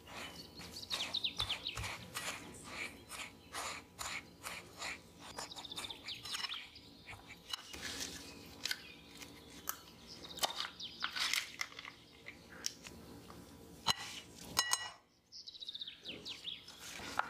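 A silicone spatula stirring and scraping a crumbly biscuit-crumb and butter mixture in a ceramic bowl: a run of short scrapes and crunches, with clusters of high, quickly falling chirps.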